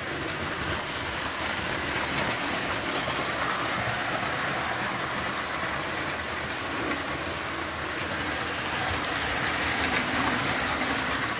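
Lionel tinplate toy trains running on three-rail metal track: a steady whirring of small electric motors and rattling of metal wheels on the rails. It grows a little louder near the end as a locomotive comes close.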